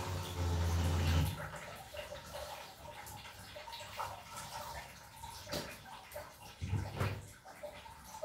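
Water running out of a drained geyser into its drip tray, a steady rush that stops abruptly about a second in, followed by scattered drips and light knocks from work at the tank's base.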